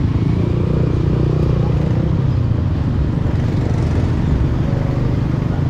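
Motorcycle being ridden at low speed through street traffic: the engine runs steadily under a continuous low rumble of wind on the microphone.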